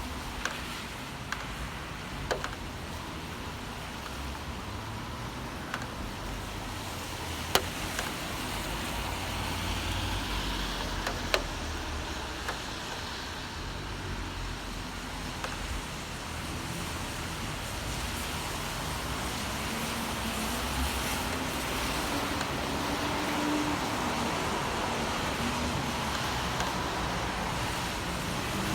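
Steady city traffic noise in the rain: passing vehicles on wet roads with a low rumble and a continuous hiss, and an engine tone gliding slowly up and down in the last third. A few sharp ticks stand out, the loudest two about 7.5 and 11 seconds in.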